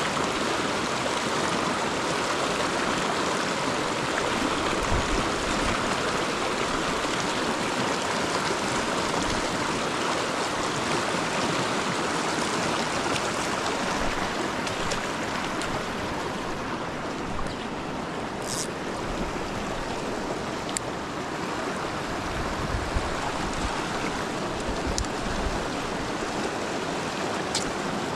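River water rushing steadily over rocks, a constant even hiss of flowing current.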